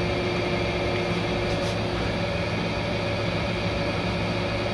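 Window air conditioner running: a steady hum with an even fan noise.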